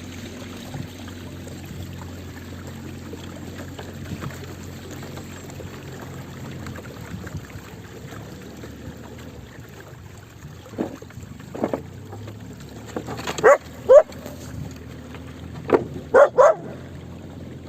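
A dog barking: a few short barks in the second half, bunched into quick pairs and triples, over a steady low hum.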